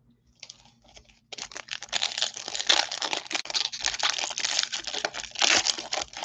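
A foil baseball-card pack wrapper crinkling and crackling as hands work it and tear it open, starting about a second in after a near-quiet moment.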